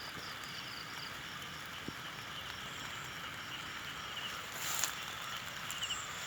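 Steady rain and strong wind in a fruit orchard, with high chirping repeating in short pulses through it. A brief louder rush comes about four and a half seconds in.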